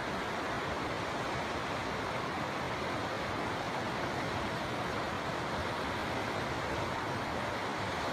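River water flowing, a steady, even rushing sound.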